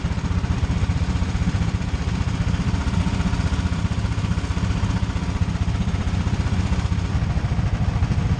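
13 HP go-kart engine idling steadily close to the microphone, a fast even putter with no revving.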